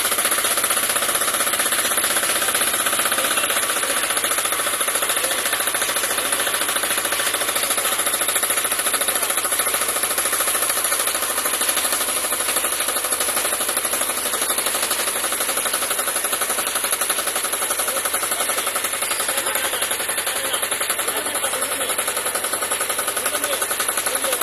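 Yanmar diesel engine running steadily while driving a 3 kVA generator, with a fast, even knocking beat.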